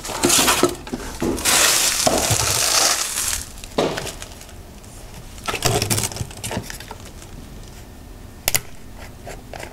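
A cloth rubbing over a plastic jug of transmission fluid, then the jug's plastic screw cap being twisted off with a few scattered cracking clicks, one sharp click near the end.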